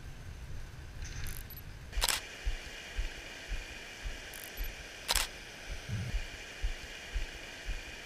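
Camera shutter clicking twice, about three seconds apart, each click preceded by a faint high tick. Under it are soft low thumps about twice a second.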